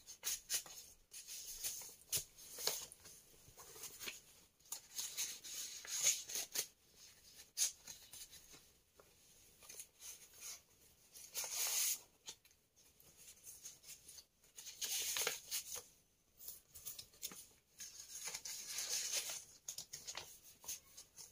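Paper being handled and folded, rustling and crinkling in irregular bursts with a few sharp clicks, louder in spells about halfway through and near the end.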